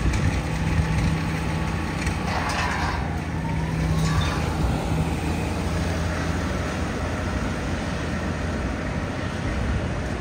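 An NYPD Chevrolet Tahoe police SUV driving slowly away over wet pavement, its low engine hum fading out about six seconds in, over steady city street traffic noise.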